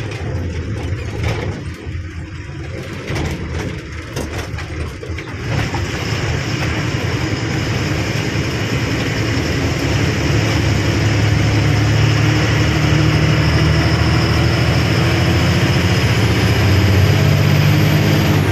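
BS-IV diesel lorry engine heard from inside the cab while driving, pulling harder and growing louder from about five seconds in, its low note climbing slowly as the truck gathers speed.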